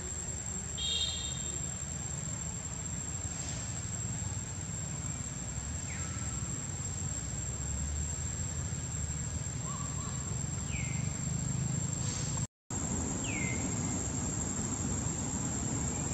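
Steady high-pitched insect drone over a low rumble of outdoor ambience, with a few short falling chirps scattered through it.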